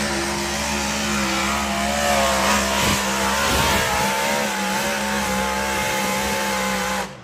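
Pulling tractor's engine running loud and steady with a slight waver in pitch; the sound cuts off abruptly near the end.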